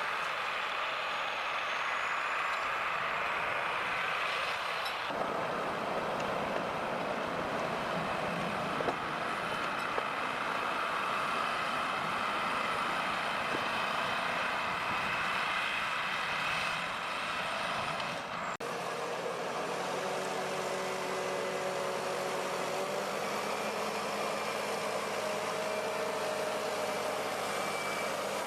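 Heavy logging vehicle engines running under load, in several shots: a dense, noisy engine sound that changes character about five seconds in, then a cut a little past halfway to a steadier engine with a few held pitches.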